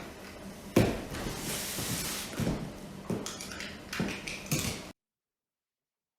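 Box being unpacked: a sharp knock, then a second or two of scraping and rustling packaging, then a few more knocks and clunks. The sound cuts off suddenly near the end.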